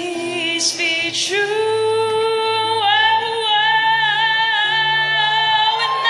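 Woman singing into a microphone: her voice rises about a second in and then holds a long note with vibrato, over low, steady instrumental notes.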